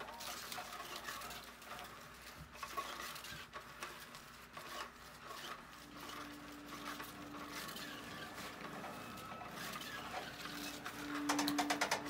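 Pattering, scuffling and rustling as a cat pounces and swats at a Da Bird feather wand toy on a concrete floor. Near the end comes a fast run of clicks, the loudest sound.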